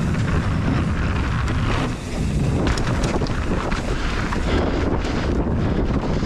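Wind buffeting a helmet- or bike-mounted action camera's microphone while a mountain bike is ridden at speed, with a few sharp knocks about two to three seconds in.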